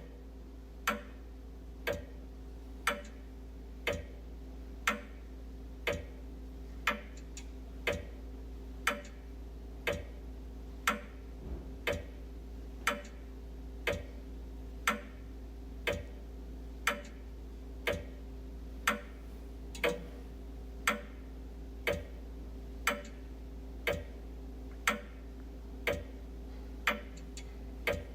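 Wall clock ticking steadily, about one tick a second, over a faint steady hum.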